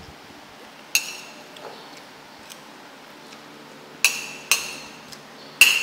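Metal spoon clinking against a ceramic plate while scooping noodles: four sharp clinks, each ringing briefly, two close together about four seconds in and the loudest near the end.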